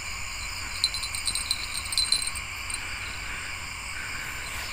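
Night insects, crickets, chirring steadily in high-pitched bands, with a few faint ticks about one to two seconds in.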